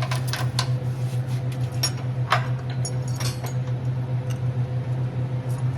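Small metal chain clinking and rattling in scattered clicks as it is handled and fed into place, over a steady low hum.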